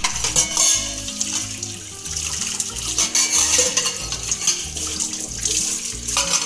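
Water running from a tap into a kitchen sink as a steady hiss, easing off briefly near the end, over background music with a repeating bass line.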